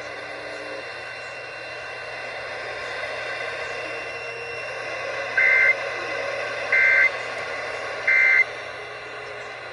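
Emergency Alert System end-of-message data tones: three short two-tone digital bursts about a second and a half apart, the coded signal that closes the test message, over a steady broadcast hiss.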